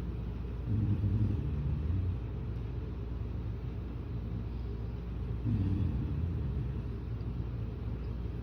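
A person snoring: two low snores, one starting about a second in and another about five seconds in, each lasting about a second and a half.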